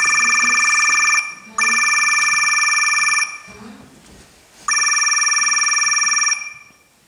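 Telephone ringing with a fast-trilling bell ring, heard in three bursts of about a second and a half each. The last ring stops near the end.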